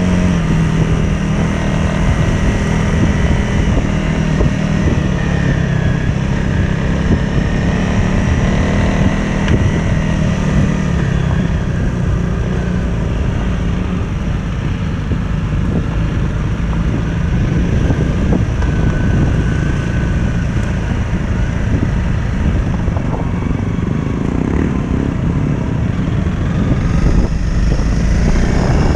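Adventure motorcycle's engine running as the bike rides a rough dirt track, with wind on the helmet-mounted microphone. The engine's steady note is clearest in the first half and sinks into the rumble of the ride later on.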